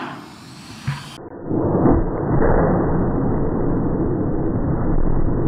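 A homemade pneumatic air cannon's shot: the blast dies away, with a single knock about a second in. Then a slowed-down replay of the shot plays as a loud, low, drawn-out rumble.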